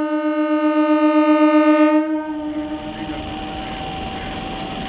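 An Indian Railways MEMU electric train's horn sounds one steady note and cuts off about two seconds in. A train's electric traction equipment then runs with a steady whine over a rumble as it moves off.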